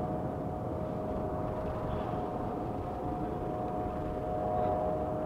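Eurocopter EC-155 helicopter in flight: a steady drone with a held whine in it, swelling slightly near the end.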